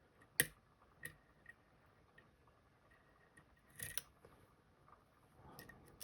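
Small metallic clicks and taps of a lock pick working the pin stacks of an Assa Guideline high-security pin-tumbler lock: a sharp click about half a second in, two lighter ones in the next second, and a short cluster near four seconds.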